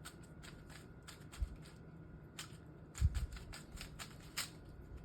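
GAN 11 M Pro magnetic speedcube being turned by hand, its layers making a run of quick, irregular clicks, with a couple of dull thumps about one and a half and three seconds in.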